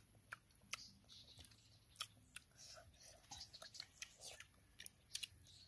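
Close-up eating sounds: a child chewing, with scattered sharp wet clicks and smacks of the mouth and fingers on the food. A faint steady high-pitched tone runs behind, breaking off now and then.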